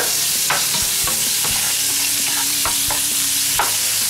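Squares of applewood smoked bacon sizzling steadily in a hot frying pan as their fat renders, with repeated scrapes and clicks of a cooking spoon stirring them around the pan.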